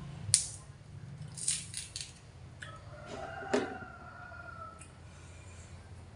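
Light clicks and snaps of hands breaking a banana off its bunch and peeling it, the sharpest a single snap about a third of a second in, with a few softer clicks after. A low steady hum runs underneath.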